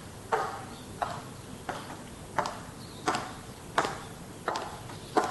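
Footsteps of hard-soled shoes on a hard floor, an unhurried walk of eight even steps, each a sharp click with a short ring.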